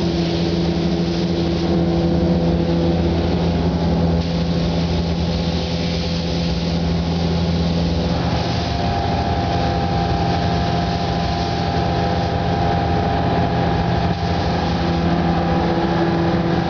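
Steady hum and hiss of paint-booth machinery, fans and air compressor, running while paint is sprayed. Several constant low tones sit under an even hiss, and a higher tone joins about halfway through.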